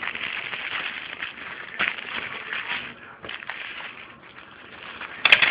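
Rustling and crackling, with scattered small clicks, as things are handled close to the microphone. A short, louder clatter comes near the end.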